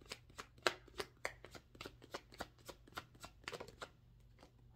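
Tarot deck being shuffled by hand: a quick irregular run of card flicks and slaps, about five or six a second, stopping near the end.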